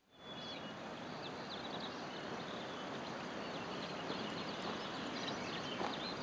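Steady outdoor ambience: an even hiss with many short, faint, high chirps and ticks scattered through it.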